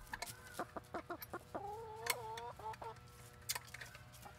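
Backyard hens clucking close by, with one drawn-out call about a second and a half in that lasts about a second, its pitch slowly rising. Short clicks and rustles sound between the calls.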